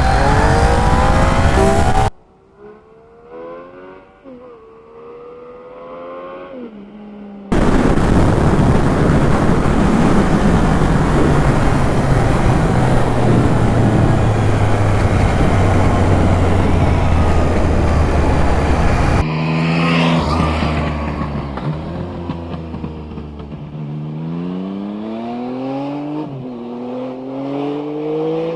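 Yamaha XSR900 three-cylinder engine through an aftermarket MIVV oval carbon exhaust, accelerating hard through the gears in several separate drive-by passes. The pitch climbs, drops at each shift and climbs again. In the middle there is a long, loud, noisy stretch, and the engine fades toward the end.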